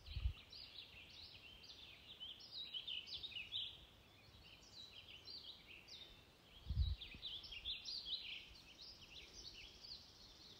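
Many small birds chirping in a dense, overlapping chorus of quick falling notes, with two short low thumps, one right at the start and one about seven seconds in.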